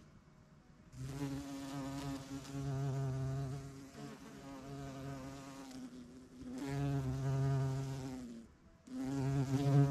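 Bumblebee buzzing in flight close to the microphone: a low hum that wavers and swells as the bee moves about. It starts about a second in and drops out for a moment near the end before coming back.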